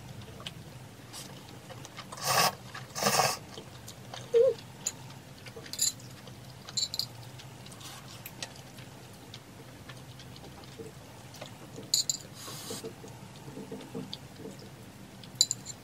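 Mukbang eating sounds: a person slurping instant noodles in two short bursts a little after two and three seconds in, with a few light clicks of metal chopsticks against the bowl scattered through, over a faint steady low hum.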